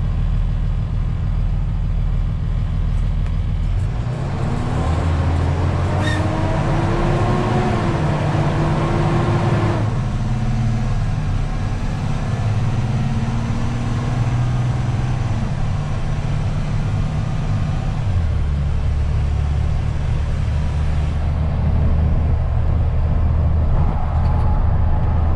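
Rollback tow truck's engine running with road noise inside the cab as it drives. From about four seconds in the engine note rises as the truck speeds up, and it changes again around eighteen seconds in.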